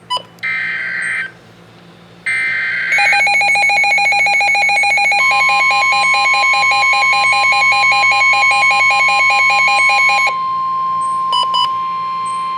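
NOAA Weather Radio emergency alert: two short warbling data bursts of the SAME header, then a weather radio receiver's rapid pulsing alarm beeps. About five seconds in, the steady 1050 Hz warning alarm tone joins and carries on after the pulsing stops about ten seconds in. Two short beeps come near the end.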